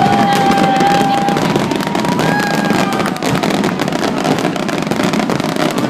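Fireworks display: a dense, continuous crackling of bursting shells, with several high whistling tones held for about a second each in the first half.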